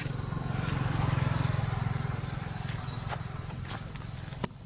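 A motor vehicle engine passing by: a low hum that swells about a second in and then slowly fades, with a few faint clicks near the end.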